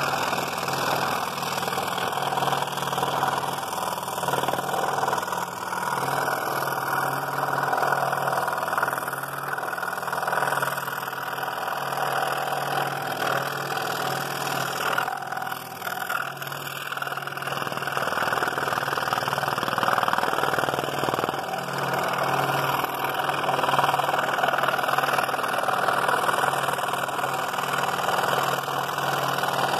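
Scroll saw running with a number 3 blade cutting through two taped-together layers of quarter-inch wood: a steady mechanical running sound with a constant low hum throughout.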